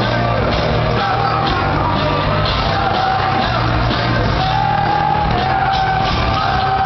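Live rock band playing loud, with electric guitar, drums and a man singing in long held notes, heard from the audience.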